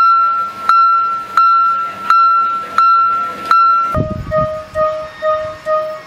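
Miniature Japanese level-crossing warning bell ringing "kan kan": a high, ringing strike about every 0.7 seconds. About four seconds in it gives way to a different crossing's alarm, a lower and faster ding about two and a half times a second.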